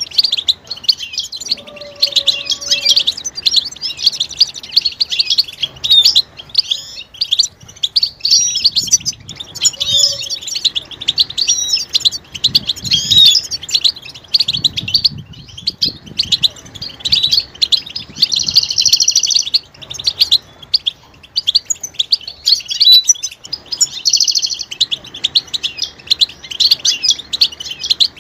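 Several European goldfinches calling in a dense, excited chorus: rapid high-pitched tweets and twitters, the mating and readiness calls used to stir a silent male goldfinch into song. Two longer buzzy trills stand out, one past the middle and one near the end.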